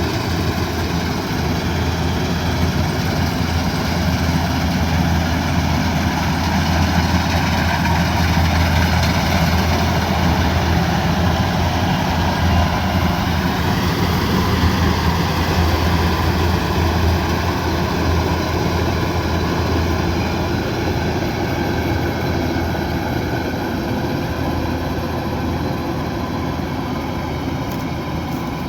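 Kubota DC108X combine harvester's diesel engine running steadily with its machinery working, a constant low drone.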